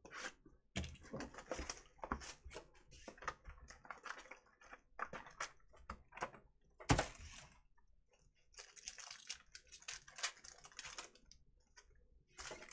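Cardboard trading-card box and packs handled, then a foil card pack torn open and crinkled: a run of irregular rustles and crackles with one sharp snap about seven seconds in and a denser stretch of tearing and crinkling near the end.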